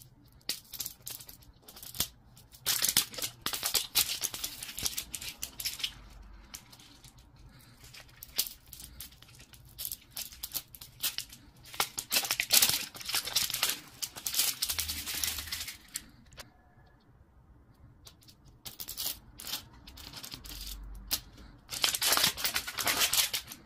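Thin plastic film wrapper being peeled and torn off a plastic toy capsule ball, crinkling in repeated bursts with short pauses between them.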